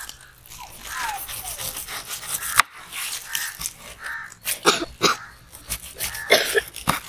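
A large kitchen knife cutting the rind off a whole pineapple on a wooden cutting board. Several sharp crunching chops as the blade cuts through the tough peel and strikes the board, most of them in the latter half.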